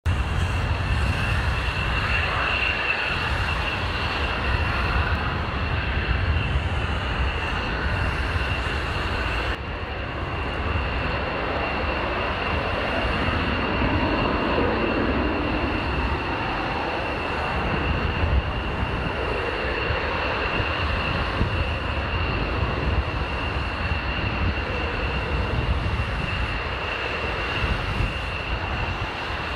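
Aircraft turbine engines running on a runway: a steady high whine over a low rumble. The sound changes abruptly about ten seconds in, and the whine continues after the change. In the first part the source is a Dassault Falcon 20 twin-jet.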